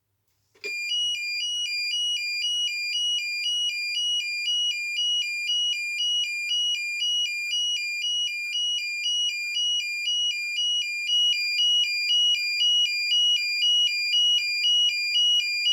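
AE&T T105N fire alarm sounder playing its tone no. 9: a loud, high two-tone signal that switches back and forth between two pitches about twice a second. It starts about half a second in.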